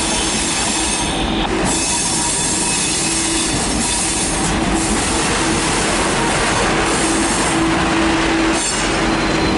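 V/Line N-class diesel-electric locomotive running light engine slowly past at close range, its engine and wheels on the rails making a steady rumble with a steady tone. The sound grows stronger near the end as it draws alongside.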